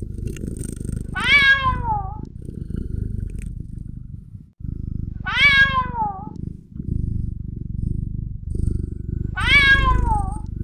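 Kitten meowing three times, each meow falling in pitch and about four seconds apart, over a steady purr.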